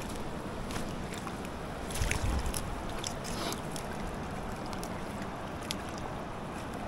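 Steady wash of river water at the bank, with wind buffeting the microphone and swelling briefly about two seconds in. A few light clicks come from handling the landing net.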